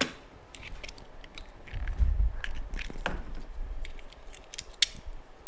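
Small round plastic housing being pried and twisted apart by hand with a screwdriver, giving scattered sharp plastic clicks and creaks over dull handling knocks. One sharp snap near the end.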